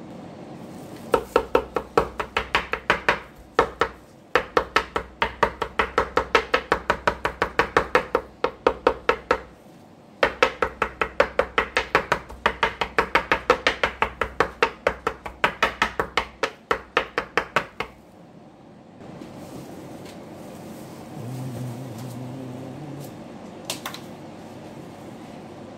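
Kitchen knife rapidly chopping raw salmon on a cutting board: quick, even knocks about five a second, in three runs with short breaks, stopping about seventeen seconds in.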